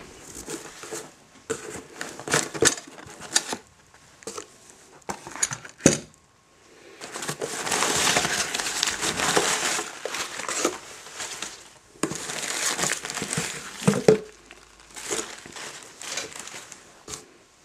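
Crumpled brown packing paper and tissue paper being rummaged through and pulled out of a cardboard box: loud bouts of crinkling and crushing, the longest lasting a few seconds, with a couple of sharp knocks in between.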